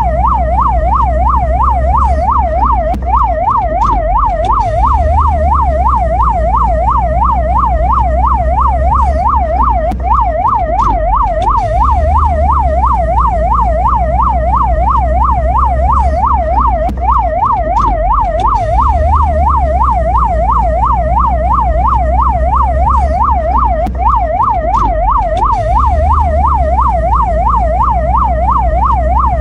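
Mexican ambulance's electronic siren sounding continuously in a fast up-and-down sweep, about two or three sweeps a second, over a low rumble.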